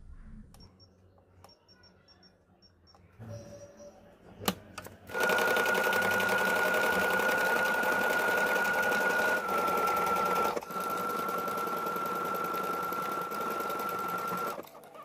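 Brother FS101 computerized sewing machine stitching letters at speed: rapid needle clatter over a steady motor whine. It starts about five seconds in, just after a sharp click, dips briefly midway, and stops shortly before the end.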